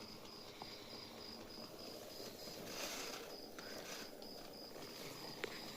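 Faint high-pitched chirping that repeats evenly, about two to three times a second, over low background hiss, with a brief rush of noise near the middle and a small click near the end.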